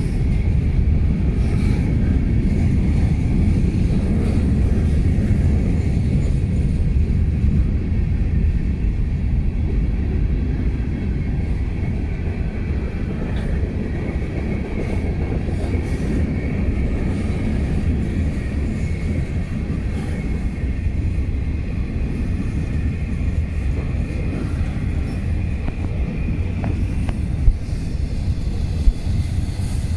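Freight train cars rolling past at close range as the train gets under way again after a stop: a steady rumble of steel wheels on rail, with a faint thin high tone running through it. Two sharp knocks come near the end.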